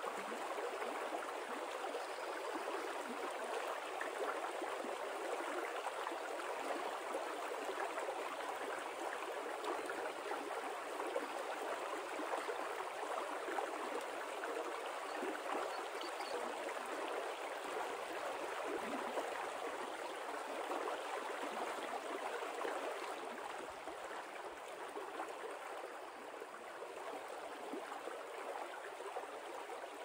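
A shallow, rocky creek rippling over stones in a steady rush of water.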